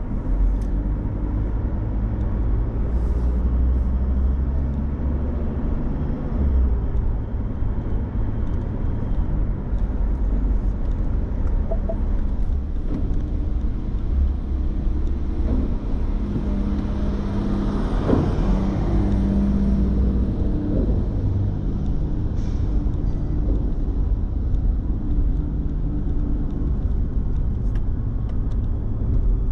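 Steady engine and road rumble of a car driving on city streets. A little past the middle, another vehicle swells and fades as it passes.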